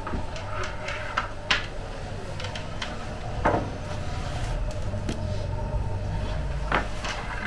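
Steady low rumble of the oven's gas burner flame, with scattered knocks and scrapes of a wooden bread peel against the oven floor as baked flatbread loaves are lifted out; the loudest knock comes about halfway through.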